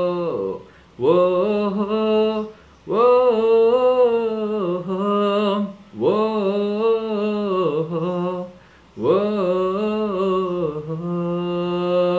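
A man singing unaccompanied, carrying the melody without recognisable words in four long, held phrases with short pauses for breath between them.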